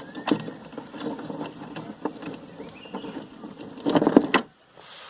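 Wooden rowboat knocking and scraping irregularly, with a louder clatter about four seconds in.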